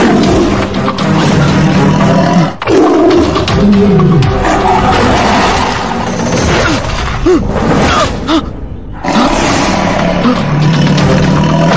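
A cartoon tiger roaring and snarling again and again over loud, dramatic background music.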